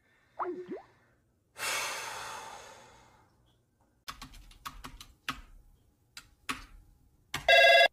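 A man's long sigh about two seconds in, then scattered computer keyboard clicks as he types, then near the end a loud electronic phone ringtone, an incoming call.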